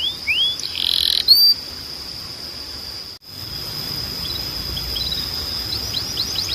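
Timbrado canary singing: a few rising whistled notes, a short buzzy phrase about a second in, then a long steady high whistle that breaks off for an instant about three seconds in, with soft notes and a fast trill starting near the end.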